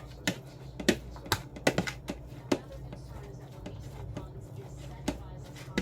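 Big fork breaking up canned chicken, its tines striking the bowl in irregular sharp taps, several close together in the first two seconds and a few more near the end, over a steady low hum.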